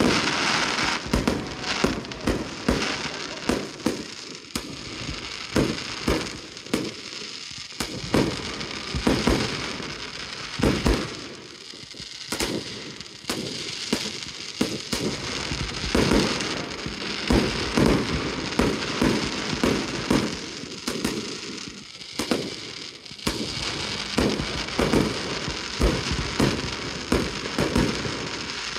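Fireworks display: aerial shells and fountains going off in a continuous barrage of sharp bangs, often several a second, with crackling between them and a few brief lulls.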